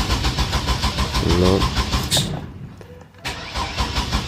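Chevy Astro's 4.3-litre V6 being cranked by the starter motor with a steady rhythmic chug but not catching, in two goes with a short pause a little over two seconds in. It is a crank-no-start even with a new camshaft sensor; the owner suspects the corroded, stripped sensor wiring or a battery run low from cranking.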